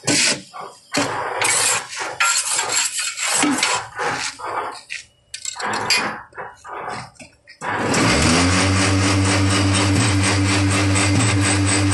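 Irregular scraping and knocking of a steel rod working concrete mix around the block machine's steel feed box, then about eight seconds in the machine's double vibrator motors switch on and run with a steady, loud, low hum.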